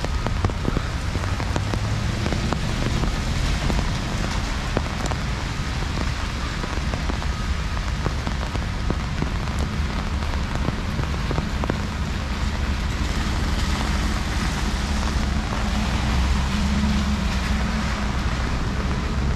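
Heavy rain falling on a city street, with many separate drops striking close by. A low rumble of traffic underneath grows stronger in the second half.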